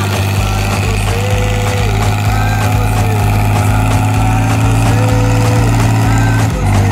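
Fiat 100-90 tractor's six-cylinder diesel engine running steadily under load as it pulls a five-shank subsoiler through the soil.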